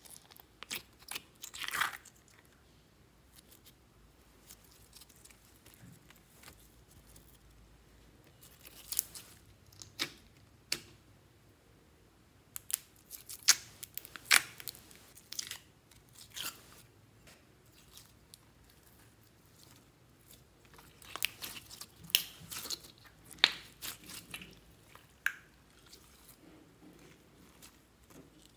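Fingers pressing and poking clear glitter slime in its plastic container, giving clusters of wet pops and crackles with quiet stretches between.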